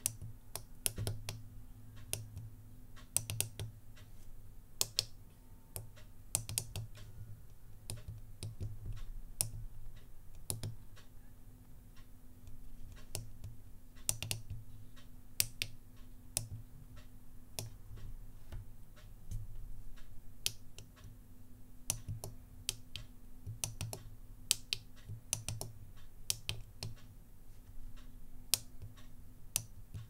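Pockettype miniature keyboard's microswitches clicking as keys are pressed one at a time, slowly and unevenly, with short pauses between the sharp clicks.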